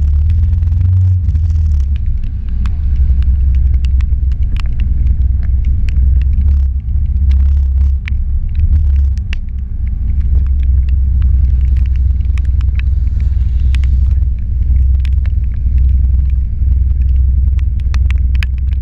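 Steady low rumble of an idling vehicle engine, with scattered sharp ticks of raindrops striking the camera.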